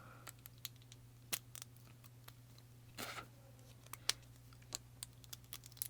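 Scattered light clicks and short scratchy rustles of a small plastic toy egg and its plastic wrap being handled, over a low steady hum.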